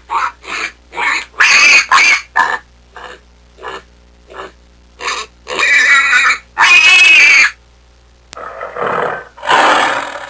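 An animal giving a rapid series of short pitched calls, then two longer, louder calls. Near the end, a breathier, noisier call.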